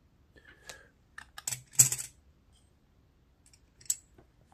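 Silver coins clicking and clinking against each other and the tabletop as they are handled and set down: a few scattered sharp clicks, the loudest cluster a little under two seconds in and one more near the end.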